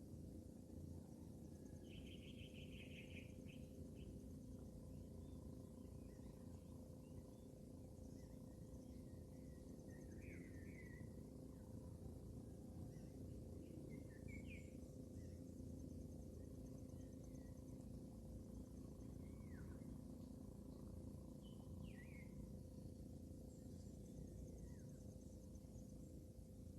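Faint outdoor ambience with birds chirping now and then over a steady low hum.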